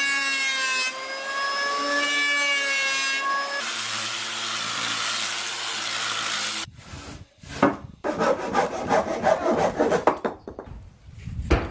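A motor-driven tool runs with a steady hiss and a wavering whine, then stops abruptly about seven seconds in. After a brief pause, a saw cuts wood in quick back-and-forth strokes.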